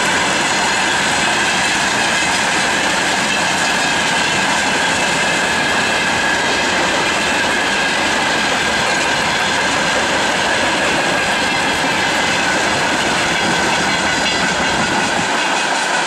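Freight train's loaded flatcars rolling along the rails: a steady rushing of wheels on track, with thin high squealing tones running through it. The low rumble thins out near the end.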